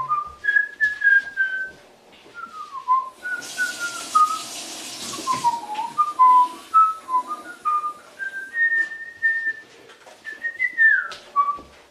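A person whistling a meandering tune by mouth, in short notes and little slides up and down, with a brief hiss about a third of the way in.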